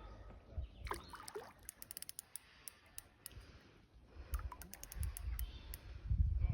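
Fishing reel ticking in irregular runs of sharp clicks while a hooked small mirror carp is played, over low rumbling handling noise.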